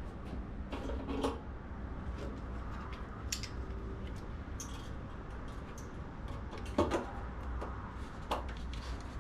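Scattered knocks, clicks and clatter of equipment being handled, the loudest about a second in and again near 7 and 8 seconds, over a low steady hum.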